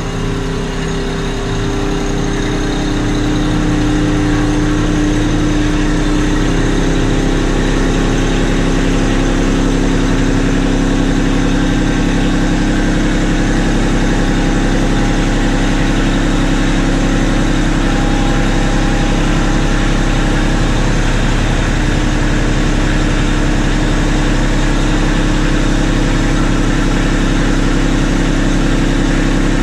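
Kubota B2650 compact tractor's three-cylinder diesel engine running steadily as the tractor creeps forward, growing louder over the first few seconds.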